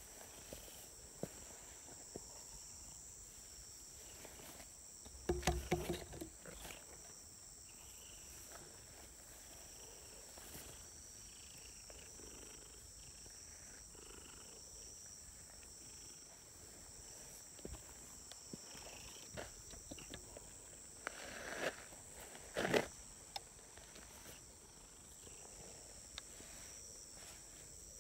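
Steady chorus of insects buzzing at two high pitches, with a few short louder knocks or rustles about five seconds in and again near twenty-two seconds.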